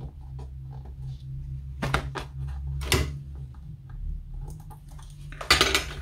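Paper and the backing of adhesive tape being handled and peeled: sharp crinkles about two and three seconds in and a louder rustling scrape near the end, over a low steady hum.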